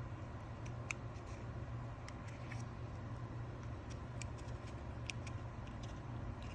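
Scattered light clicks and taps of hand tools and small metal parts as a Tillotson HL87A carburetor's metering cover is taken off, over a steady low hum.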